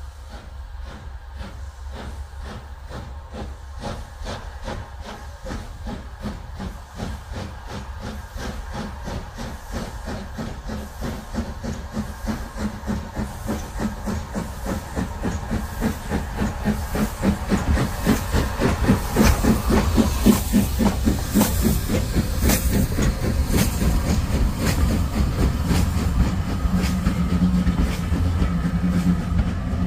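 Steam locomotive pulling away with a train, its exhaust beating in an even rhythm with steam hissing, growing louder as it comes near and passes. Near the end the coaches roll by, their wheels running over the rails.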